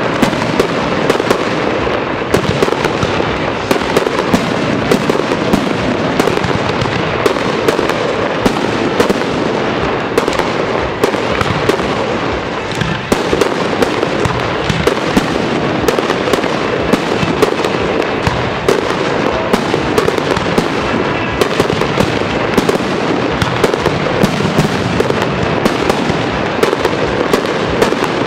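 Fireworks display: aerial shells going off in a dense, unbroken barrage of bangs and pops, many a second.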